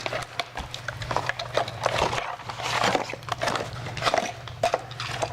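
Plastic packaging and toy train parts being handled: irregular clicks, taps and crinkles of plastic, over a steady low hum.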